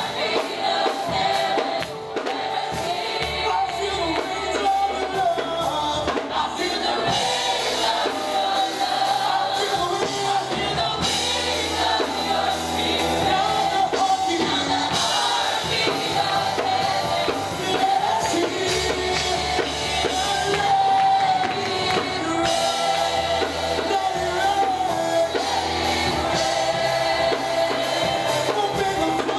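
Live congregational worship music: a group of singers on microphones singing a worship song over steady instrumental backing.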